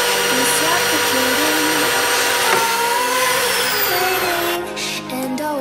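Electric tube bender's motor running under load as it bends a steel tube, a steady whining drone that shifts in pitch about halfway through and stops about four and a half seconds in.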